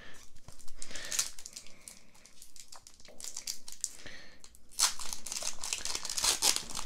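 Foil wrapper of a Pokémon trading-card booster pack crinkling as it is handled and torn open by hand, with irregular crackles, loudest a little under five seconds in.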